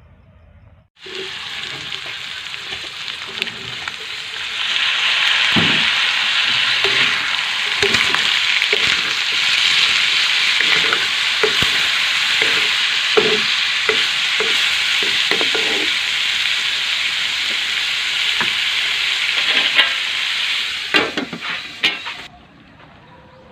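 Food sizzling in a hot oiled pan while being stirred, with irregular scrapes of a spatula against the pan. The sizzle grows louder about four seconds in and cuts off suddenly near the end.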